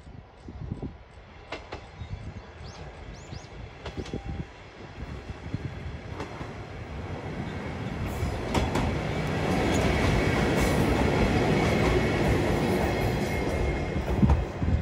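Diesel railcar approaching and passing close by, its engine and wheels on the rails growing steadily louder and loudest over the second half as it goes past.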